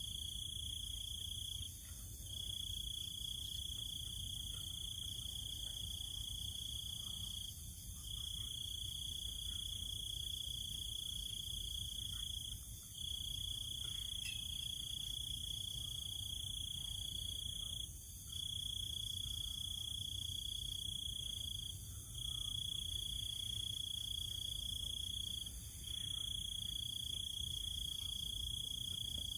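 Crickets trilling in one high continuous note, broken by short pauses about every four to five seconds, over a fainter higher insect hiss.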